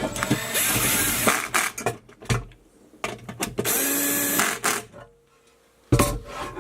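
Small electric power screwdriver driving screws in two bursts of about a second each, the second held at a steady pitch, with clicks and knocks of screws and metal parts being handled.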